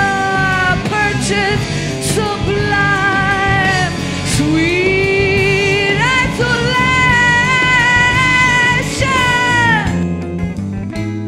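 Live rock band playing: a lead line of long held notes that bend at their ends rides over bass and drums, then drops out about ten seconds in, leaving the rhythm section and guitar.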